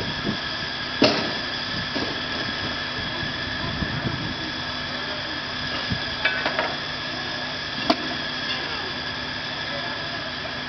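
Steady drone of running machinery with several even, high whining tones held throughout, broken by a sharp knock about a second in and another near eight seconds.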